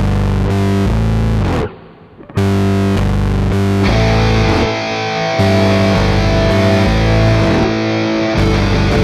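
Background rock music with distorted electric guitar, briefly dropping out about two seconds in and growing fuller about four seconds in.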